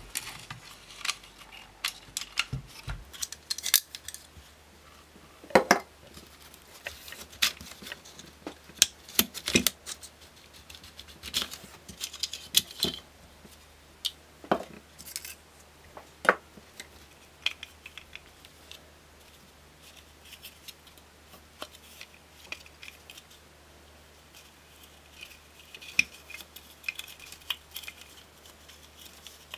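Plastic housing parts of a Dyson V10 cordless vacuum being handled and pulled apart by hand: irregular sharp clicks, taps and light rattles of hard plastic, with a quieter stretch a little past the middle.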